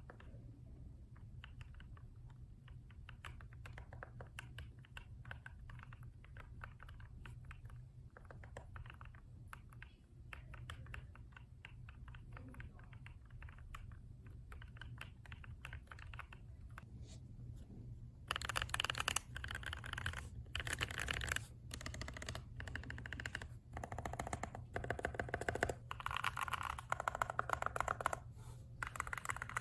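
Typing on a mechanical keyboard: rapid key clicks, softer at first and much louder and brighter from a little past halfway on, over a steady low hum.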